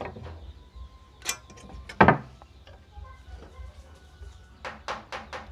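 A few light knocks and taps of a steel carpenter's square and marking tool against a wooden board. The loudest knock comes about two seconds in, and four quick taps follow near the end, over a low workshop hum.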